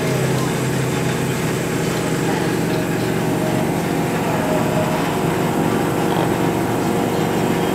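Heritage tram running along the track, heard from inside its carriage: a steady low hum and rumble of motors and wheels on the rails.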